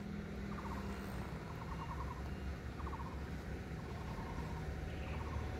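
Outdoor ambience with a steady low rumble and several faint, short trilling calls from a small animal, repeated every second or so.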